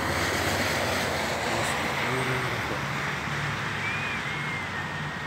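Road traffic on a wet road: a steady hiss with a low engine hum underneath.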